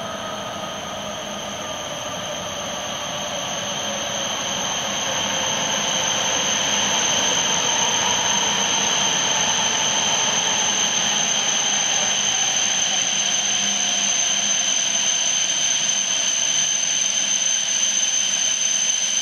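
Hokuriku Shinkansen train approaching the station: a steady rushing noise with high, steady whining tones. It grows louder over the first several seconds and then holds.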